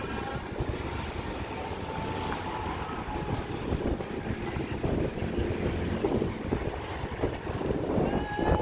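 Low vehicle engine rumble with wind buffeting the microphone, and a brief faint horn-like tone about eight seconds in.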